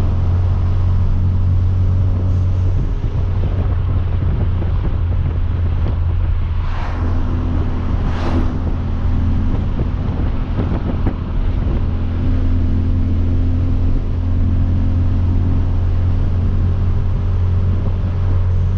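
Hyundai Veloster Turbo's 1.6-litre turbocharged four-cylinder, breathing through a catless downpipe, droning steadily at a cruise, with road and wind noise through the open windows. Two brief whooshes come about seven and eight seconds in.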